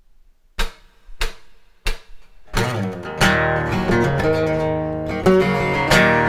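Three sharp percussive knocks about two-thirds of a second apart, then a steel-string acoustic guitar comes in strumming chords in a rhythmic, accented intro.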